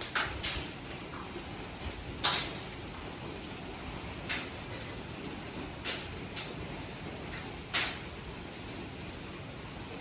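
Hailstones striking the house: sharp, irregular cracks and knocks, roughly ten in ten seconds, over a steady hiss. The loudest hit comes about two seconds in.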